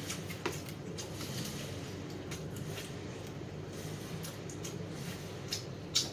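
Eating fried chicken: chewing, with a few short, sharp crunches or clicks, the strongest about half a second in and just before the end, over a steady low background hum.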